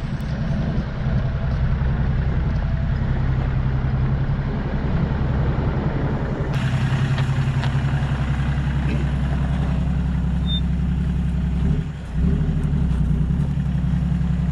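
4x4 vehicle's engine running steadily with a low drone. About three-quarters of the way through it drops away for a moment and comes back at a different pitch.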